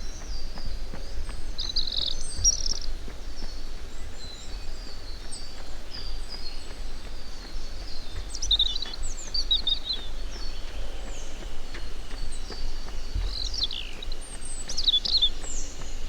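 Several small birds chirping and singing in short, high trills, with louder bursts of song about two seconds in, around eight to ten seconds, and again near thirteen to fifteen seconds, over a steady low rumble.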